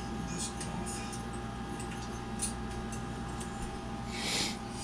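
Small nitro engine parts handled on a workbench: a few faint light clicks, and about four seconds in a brief scrape as a part is picked up, over a steady background hum.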